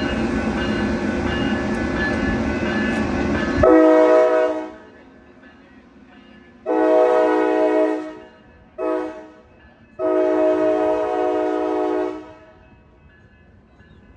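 A COASTER commuter train rumbling past close by, which stops abruptly about four seconds in. Then the train's horn sounds four blasts, long, long, short, long: the grade-crossing warning signal.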